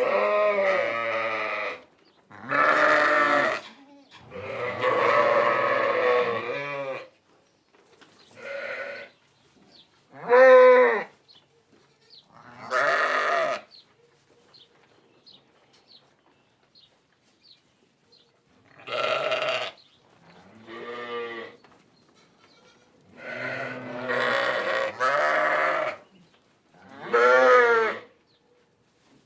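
Sheep bleating: about ten separate baa calls of differing length and pitch, with a quiet pause of several seconds midway.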